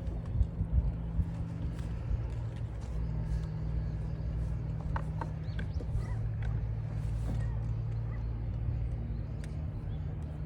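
A steady low engine hum that shifts pitch slightly a couple of times, with scattered light clicks and ticks over it.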